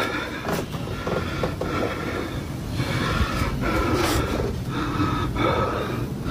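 A person breathing heavily close to a phone microphone, breath after breath, over a steady low rumble.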